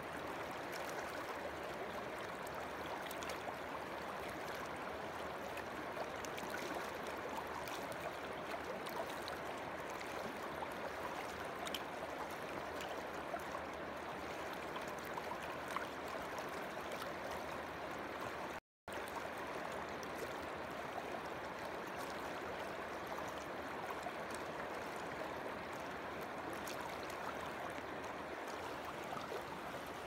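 Fast-flowing river water rushing over rocks, a steady wash of noise with small splashes. It cuts out completely for a split second a little past halfway, then resumes unchanged.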